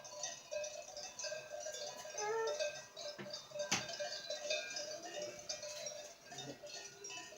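Many cowbells on grazing cows clanking, ringing at several different pitches in an irregular jangle, with one sharper clank about halfway through.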